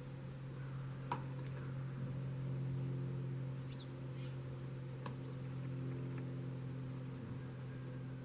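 A steady low hum with a few overtones, like a small motor or appliance, with two sharp clicks, one about a second in and one about five seconds in.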